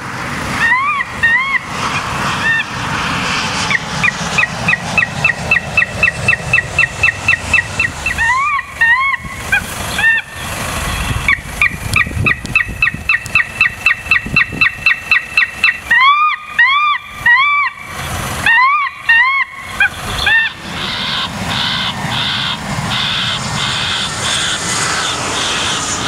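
Bird-scaring sounds broadcast from an airport wildlife-control vehicle's roof loudspeakers to drive birds off the runway: loud squawking calls that rise and fall in pitch, alternating with long runs of rapid pulses at about four a second, and turning to a rough, choppy noise near the end.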